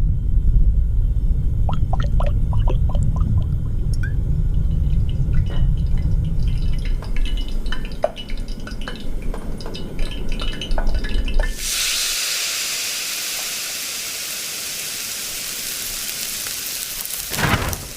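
A low rumble with scattered small drips and clicks, then about two-thirds of the way in a steady, rain-like hiss starts suddenly, with two louder swishes near the end.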